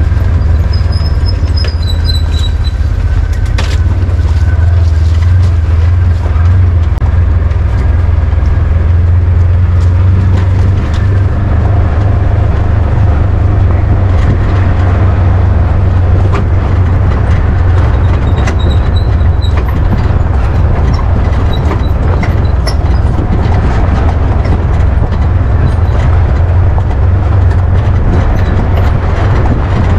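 Polaris side-by-side driving along a rough dirt trail: a steady low rumble with frequent rattles and knocks from the machine jolting over the ground.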